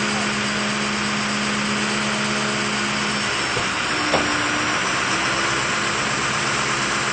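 An engine running steadily under a dense, even noise, with a steady hum that drops out about three seconds in and a single short knock about four seconds in.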